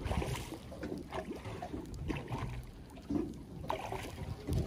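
Hooked fish splashing at the surface beside an aluminium boat's hull, with scattered small splashes and water sloshing over a low steady rumble.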